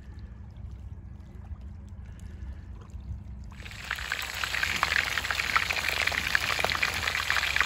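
Zander pieces frying in hot oil in a wide pan, sizzling with dense crackles. The sizzle starts suddenly about halfway in, after a faint low rumble.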